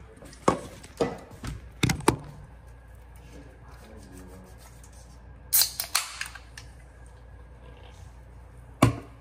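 Sharp knocks and clicks at irregular intervals: several in the first two seconds, a short clatter about five and a half seconds in, and one more knock near the end, with low room noise between.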